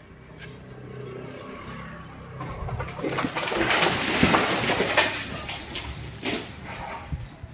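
A motor vehicle passing close by on the street: a noise that swells over a couple of seconds and fades away, with a few knocks.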